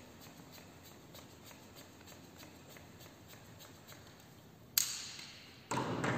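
Handling of an inflated bicycle inner tube: faint regular clicks and rubbing, then near the end a sudden sharp hiss that fades, followed by a louder rough rustle.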